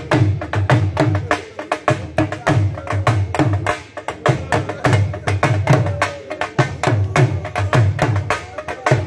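Punjabi dhol drum played in a fast, steady rhythm: deep bass strokes on one head against sharp, cracking stick strokes on the other.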